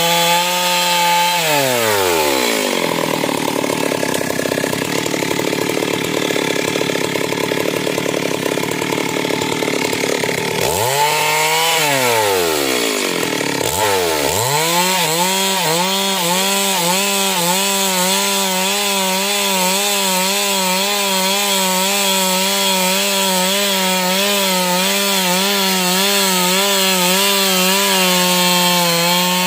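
Two-stroke chainsaw ripping a log lengthwise. The engine runs at high revs, drops away about two seconds in, revs up and down twice around the middle, then holds high under cutting load with its pitch wavering quickly.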